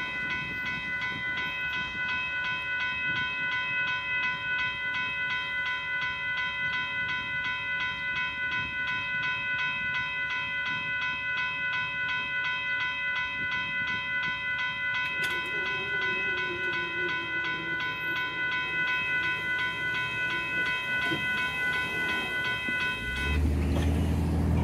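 Electronic railroad crossing warning bell ringing in a fast, steady, high-pitched pulse, then stopping about 23 seconds in as the crossing clears. Road traffic moves off across the tracks near the end with a louder low rumble.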